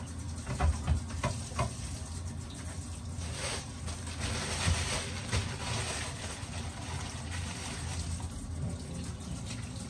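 Kitchen tap running in a steady stream into a stainless-steel sink. There are a few light knocks about a second in, and the water noise grows louder around the middle.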